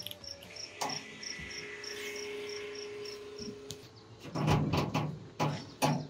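Cricket chirping in a steady high-pitched pulse of about four chirps a second. Under it a faint steady hum runs from about one to four seconds in, and louder low rumbling noises come in near the end.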